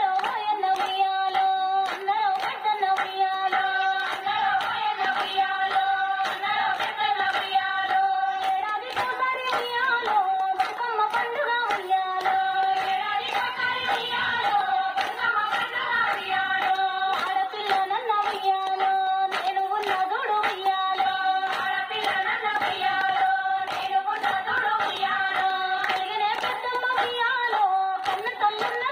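Rhythmic group hand-clapping in time with a Bathukamma folk song sung by female voices, its long notes held steady.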